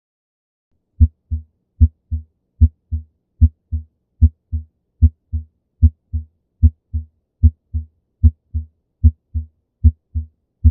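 Normal heart sounds, the paired "lub-dub" of the first and second heart sounds, at about 75 beats a minute and starting about a second in. Each pair is a louder, sharper thud followed by a softer one, with clean silence between beats and no murmur.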